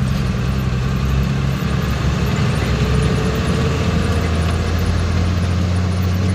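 Vehicle engine running steadily with a low drone, heard from aboard the moving vehicle along with road and wind noise.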